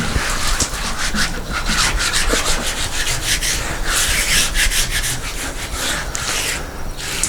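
Water being rubbed across the surface of a freshly milled driftwood slab: a quick, uneven series of rubbing, swishing strokes over the wood, several a second, with a few longer sweeps.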